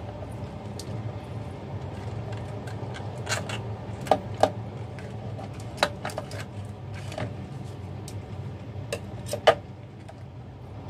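Raw crab being broken up and cut with kitchen scissors on a wooden cutting board: scattered sharp clicks and cracks of shell and scissor blades, about seven or eight in all, over a steady low hum.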